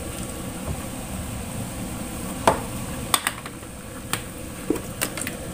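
Wok of chicken rendang in coconut milk simmering: a steady low hiss with a handful of short, sharp clicks and taps, the loudest about two and a half seconds in.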